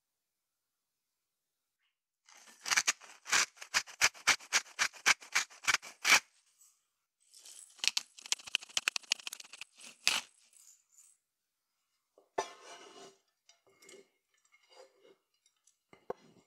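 Kitchen food-preparation sounds: a quick run of sharp, even taps at about four a second, like a knife chopping on a board. Then a few seconds of scraping strokes, a knock and scattered light ticks.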